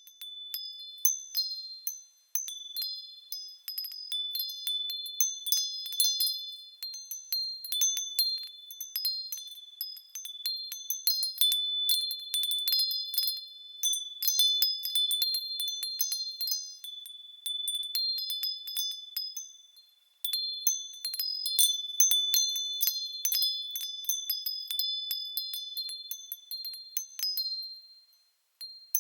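Wind chimes tinkling in a breeze: high-pitched ringing notes at several pitches, struck irregularly and overlapping, with brief lulls about two seconds in, around twenty seconds, and near the end.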